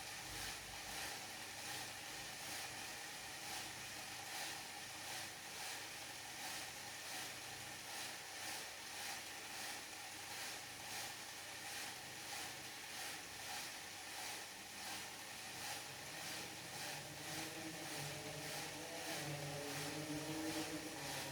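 Mechanism of a LEGO Technic crane working under a load test: a steady hiss with faint regular ticks, and a small motor-like whine that rises in pitch near the end.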